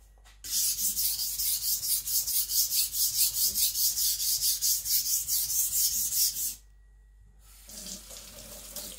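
Steel blade of a Zwilling Five Star chef knife being stroked back and forth on a Naniwa Aotoshi 2000-grit whetstone: a fast, even rhythm of wet scraping strokes, about three or four a second, grinding the blade flank to thin it. The strokes stop about six and a half seconds in, and after a short pause a tap runs into the sink.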